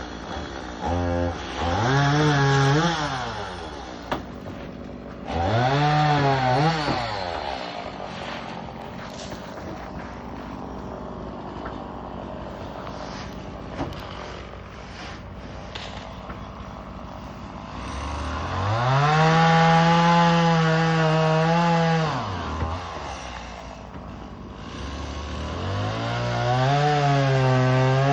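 Two-stroke chainsaw revved up four times, held at full throttle for one to four seconds each time, then dropped back to a lower idle in between, as when cutting up a fallen tree limb.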